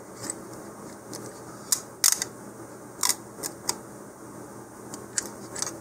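Scattered sharp clicks and crackles of a self-adhesive decal being wrapped around and pressed onto a cardboard model rocket body tube by hand, about eight in all, the loudest about two seconds in.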